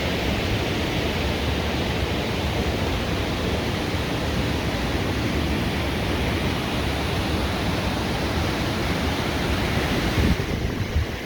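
Blakiston Falls, a mountain waterfall, rushing as a steady loud hiss of falling water. Near the end the higher hiss drops off suddenly, with a few knocks.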